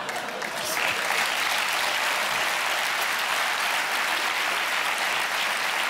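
Studio audience applauding. The clapping swells about a second in and then holds steady.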